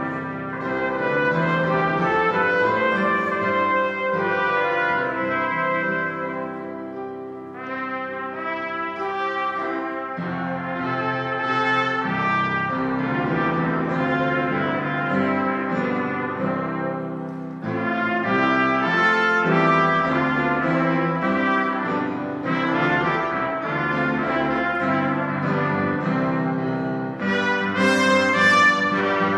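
Two trumpets playing a hymn-like melody together over Yamaha grand piano accompaniment, in long phrases with short breaks between them, growing louder and brighter near the end.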